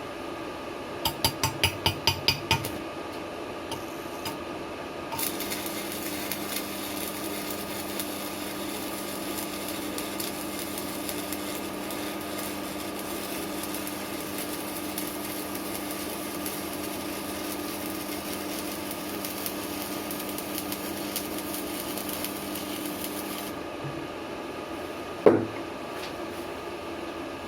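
Strat 160KS stick-welding inverter arc-welding: a quick run of taps as the electrode is struck, then a steady arc hiss for about 18 seconds over a steady hum from the welder, stopping abruptly, with a single knock near the end. The hum appears only with the casing fitted, which the welder suspects comes from something inside touching the casing.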